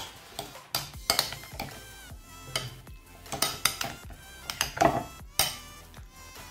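Sliced sausage pieces being tossed with spice paste in a glass bowl, knocking and clinking irregularly against the glass.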